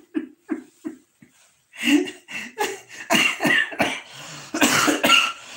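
A man's fit of laughter: short rhythmic laughing pulses that die away about a second in, then, after a brief pause, louder breathy bursts broken by coughing.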